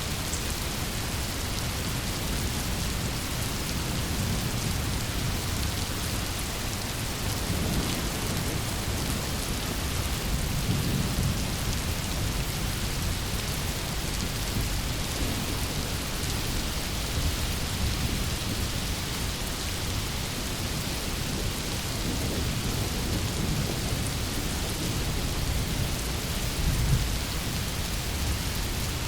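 Rainstorm recording: steady heavy rain with low rolling thunder rumbling several times.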